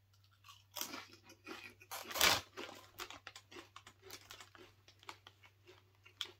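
A person biting and chewing crunchy Doritos tortilla chips: a run of loud crunches, loudest about two seconds in, then quieter irregular chewing crackles. Near the end comes the crinkle of the plastic chip bag as a hand rummages in it.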